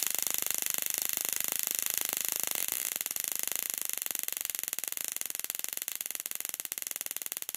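"Power 200" stun gun arcing continuously across its test electrodes: a rapid crackle of sparks over a steady high whine. The crackle thins and drops a little in level about three seconds in.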